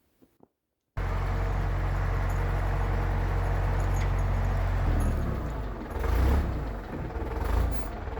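Case 680G backhoe's diesel engine running, cutting in suddenly after about a second of near silence. It runs steadily, then from about five seconds in its sound rises and falls unevenly.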